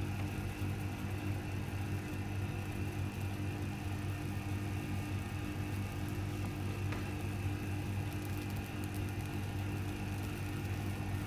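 Van de Graaff generator's electric motor and belt running with a steady, even hum.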